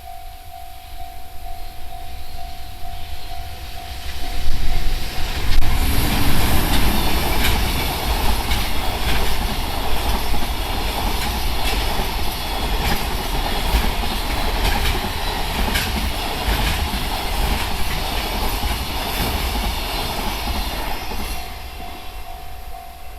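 A freight train hauled by an EH500 electric locomotive runs through a level crossing. It approaches and is loudest about four to six seconds in as the locomotive passes, then a long run of container wagons rolls by with clickety-clack from the wheels, and the sound fades near the end. The crossing's Tohoku-style warning bell rings steadily at the start and again as the train fades.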